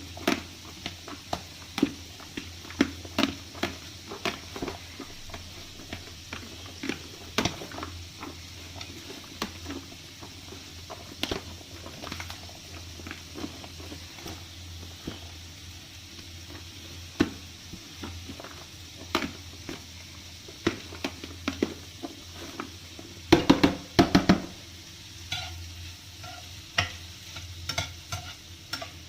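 A cooking utensil stirring vegetables in a frying pan, knocking and scraping against the pan every second or so over a soft sizzle, with a quick flurry of knocks about 23 seconds in.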